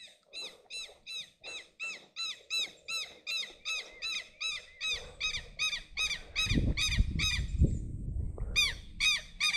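Southern lapwing (quero-quero) calling in a fast, steady series of shrill, squeaky cries, about three a second, pausing briefly near the end and then starting again. This is the alarm calling it makes before diving at people who come near. A low rumble, like wind or handling noise, runs under the calls through the middle.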